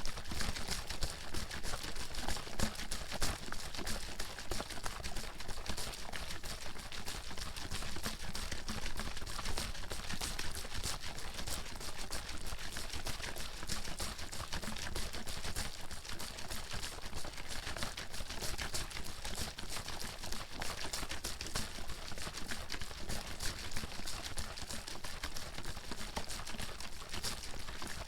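Water sloshing and splashing in a bottle that is being shaken hard and continuously, a dense, even stream of rapid sloshes and knocks.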